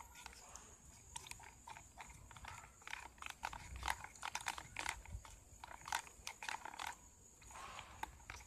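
Plastic spoon stirring white glue and water in a plastic bowl: faint, irregular clicks and scrapes of the spoon against the bowl and wet sticky stirring.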